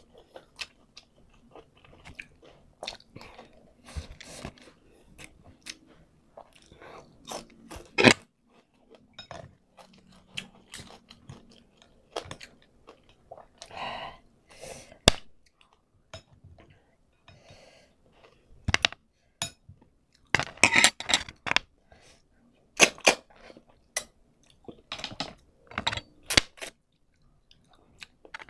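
Close-miked chewing and mouth sounds of a person eating a coconut-milk vegetable stew by hand. Soft wet chewing runs throughout, broken by irregular sharp smacks and clicks.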